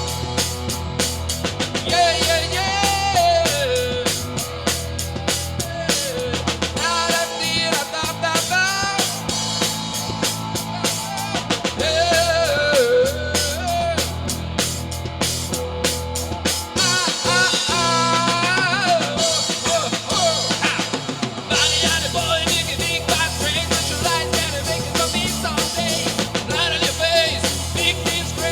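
Rock-and-roll band playing a song: a drum kit keeps a steady beat under a bending melodic lead. The low end drops away for a few seconds about two-thirds of the way through, then the full band comes back.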